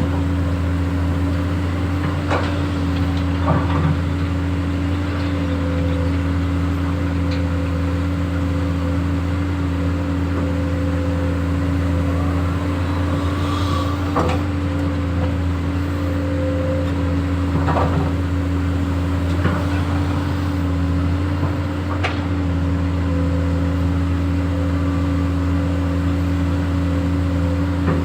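Excavator engine running at a steady pitch, with a few sharp clanks from the machine at work.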